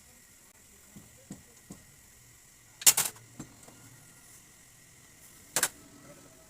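Sharp metallic clanks of tools and parts being handled while a heated nut is taken off a motorcycle rear shock absorber rod: a few light clicks, then a loud clatter of several quick hits about three seconds in and another shorter one near the end.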